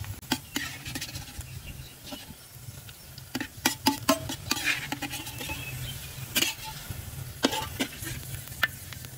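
Metal ladle scraping and clinking irregularly against a steel wok while fried ginger is scooped out of hot oil, with a light sizzle of the oil beneath.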